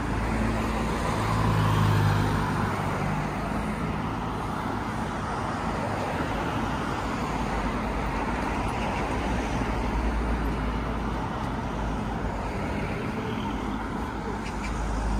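Steady road traffic from cars on the adjacent street, with one vehicle's engine hum swelling briefly between about one and three seconds in.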